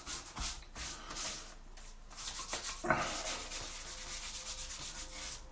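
Hand rubbing over a freshly shaved scalp: a run of short, quick scratchy rubbing strokes.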